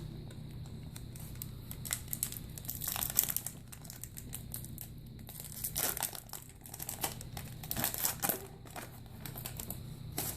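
Foil wrapper of a Pokémon trading card booster pack crinkling as it is handled and torn open, in irregular bursts of crackling.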